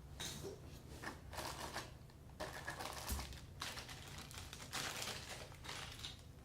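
Plastic packaging crinkling and small faucet parts clicking as they are handled, in irregular bursts.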